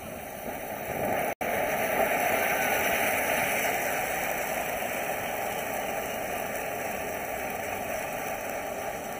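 Spinning lotus ground-fountain firework spraying sparks with a steady rushing hiss. The hiss swells about two seconds in, then slowly fades, and cuts out for an instant about a second and a half in.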